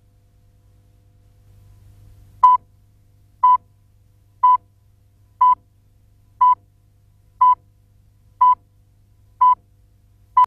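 Countdown leader beeps: a short, steady mid-pitched tone pip once a second, nine in a row, starting about two and a half seconds in, over a faint low hum.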